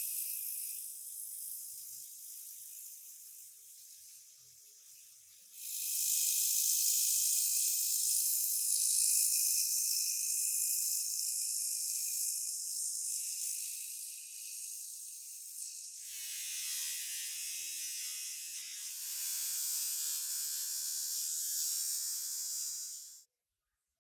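Steady high hiss of a spray, in three stretches that grow louder about five seconds in and change tone around two-thirds of the way through, then cut off suddenly near the end.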